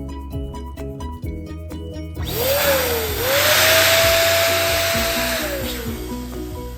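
Electric balloon pump blowing air into a balloon: it starts a little over two seconds in with a rising whine, runs steadily for about three seconds, then winds down, over light background music.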